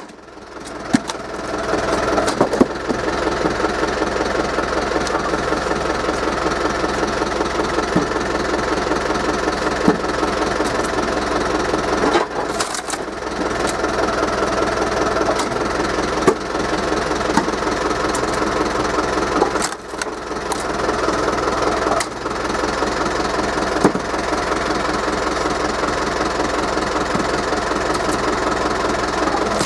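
Forklift engine running steadily to drive the hydraulic pump of a log splitter mounted on its forks, with a few sharp cracks of wood splitting.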